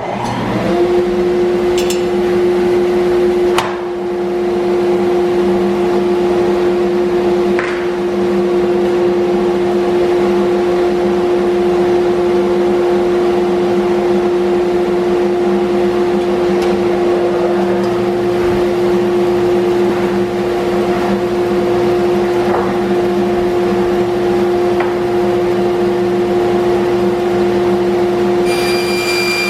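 An electric power tool's motor spins up within the first half-second, then runs at a steady speed with a constant whine, with a few faint clicks early on, as the tool works on wood.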